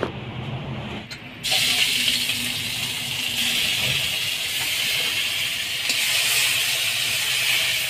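Ground onion, ginger and garlic paste hitting hot oil in a kadai: a loud sizzle that starts suddenly about a second and a half in and carries on steadily as the paste fries.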